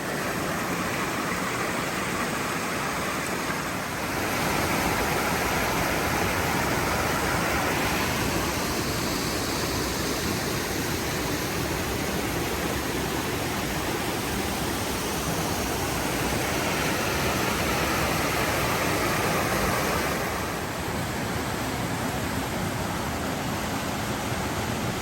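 Steady rush of water tumbling down a mountain stream's cascades, growing a little louder twice along the way.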